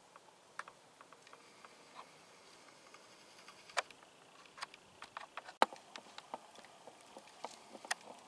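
Irregular light clicks and taps of camera handling noise, the sharpest about five and a half seconds in.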